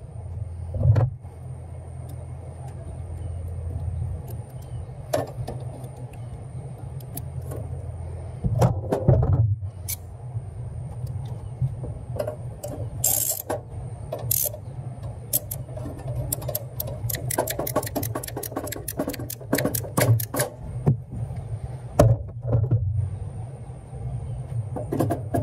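Hand tools clicking and clinking against the metal jaws of an electric meter socket, in scattered sharp knocks that come thickest and fastest in the last third. Under the knocks runs a steady low rumble.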